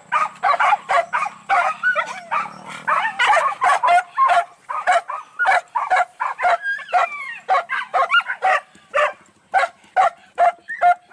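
Hunting dogs yelping and barking over and over in quick succession, about two or three short calls a second, spaced a little further apart near the end.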